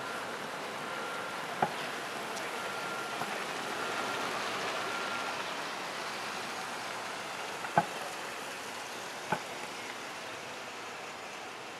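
Steady hiss of city street noise, with a faint beep repeating about once a second for the first five seconds or so. Three sharp knocks stand out, about two, eight and nine seconds in, the middle one the loudest.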